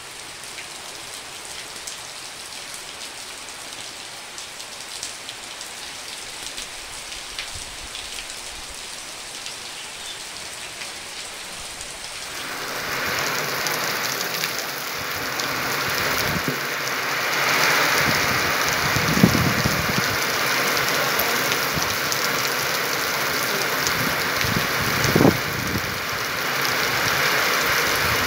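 Steady rain falling on wet ground and puddles. About twelve seconds in it gives way to a louder, heavier downpour on a paved street, with low rumbles twice in the second half.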